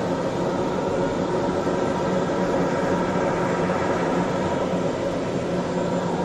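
Turboprop engine running at low power while the aircraft taxis and lines up, heard inside the cabin beside the engine: a steady drone with several held tones, with no change in power.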